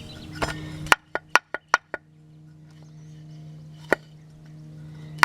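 Sharp metallic clicks and knocks from the riding tractor's belt tensioner pivot being worked by hand and oiled: a quick run of about five around a second in, then single ones near four seconds and at the end, over a faint steady hum.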